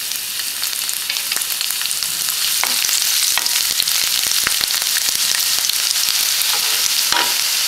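Chopped garlic sizzling in hot oil in a nonstick pan: a steady hiss with scattered pops, and a spatula stirring and scraping across the pan.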